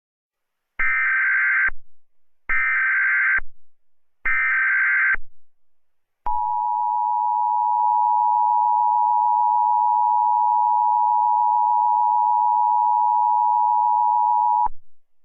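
Emergency Alert System sequence: three short bursts of SAME header data tones, each just under a second long and about a second apart, then the steady two-tone attention signal, held for about eight seconds before it cuts off.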